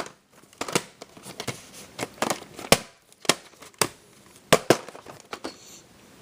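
A series of irregular sharp clicks and crackles, about two a second and of varying loudness, like handling noise.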